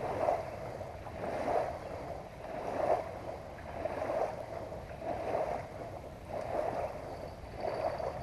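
Small waves lapping on a sandy shore, a soft wash swelling and fading about every second and a quarter.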